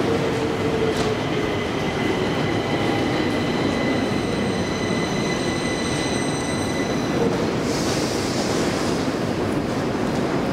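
Metro train running on the rails: a steady rumble with a high ringing wheel squeal from about one to seven seconds in, then a short hiss.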